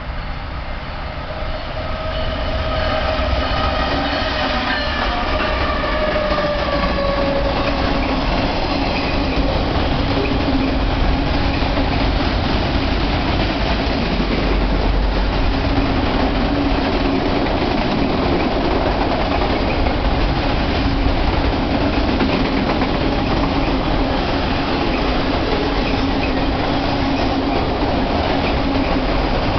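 BNSF autorack freight train passing close at speed. The locomotive's horn sounds for the first several seconds and drops in pitch as it goes by. After that comes a steady loud rumble and clatter of wheels as the long string of autorack cars rolls past.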